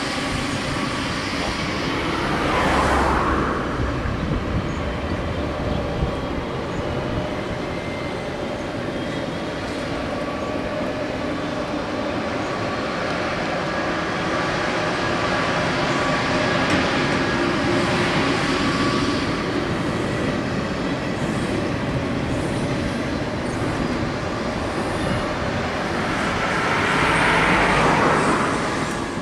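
Double-deck TGV high-speed train running past: a steady loud rolling of wheels on rail with a faint hum. It swells about three seconds in and again near the end as the rear power car comes close.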